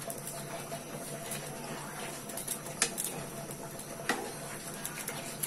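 Wooden spatula stirring string beans in coconut milk in a metal wok, with two sharp knocks of the spatula against the pan about three and four seconds in, over a steady low hum.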